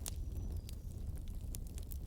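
Wood fire (takibi) crackling: sharp snaps and pops from the burning wood, a loud one right at the start, over a low steady rumble.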